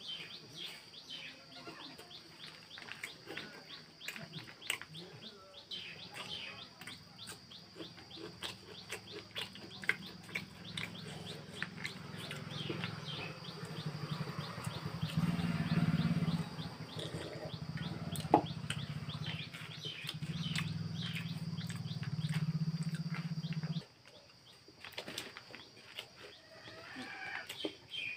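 Close-up crunching and chewing of puffed rice (muri) eaten by hand, many short crisp crackles, with birds chirping in the background. A low steady hum builds through the middle and cuts off suddenly about 24 seconds in.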